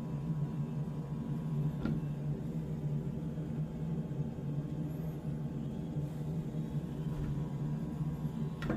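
Samsung washing machine running with a steady low hum and a faint click about two seconds in, while, by the owner's account, no water comes in.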